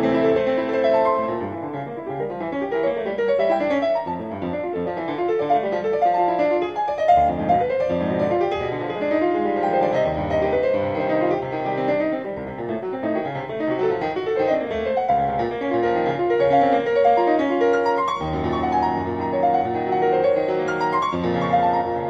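Background piano music playing continuously.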